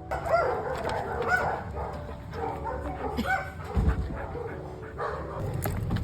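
Dog barking and yipping in short, excited high calls, in clusters just after the start, about a second in and again a little after three seconds. A low rumble with a thump sits under the calls a little before four seconds.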